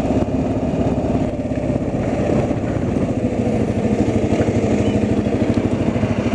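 An engine running steadily with an even, fast throb.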